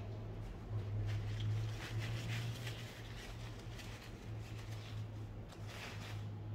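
Paper tissue crinkling and rubbing as a metal vape tank part is wiped clean by hand, in irregular short rustles, over a low steady hum.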